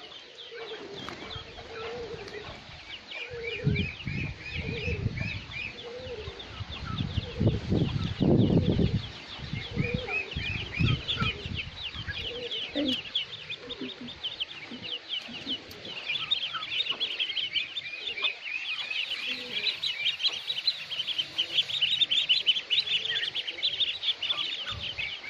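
Chicken chicks peeping: a dense stream of short, high, falling cheeps that gets busier in the second half, with a few lower fowl calls near the start. Low rumbling thuds stand out from about three to twelve seconds in.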